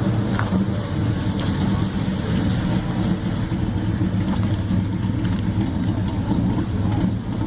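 A classic car's engine idling with a steady low rumble.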